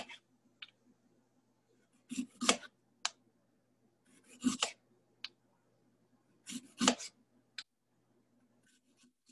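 Chef's knife slicing through a peeled daikon radish on a wooden cutting board: three short bursts of crisp cuts about two seconds apart, with a few single light clicks between them.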